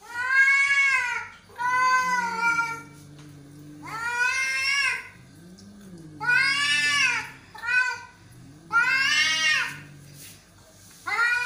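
Domestic cats in an aggressive standoff: about seven loud, drawn-out yowls, each rising and then falling, with a low growl in the gaps between them.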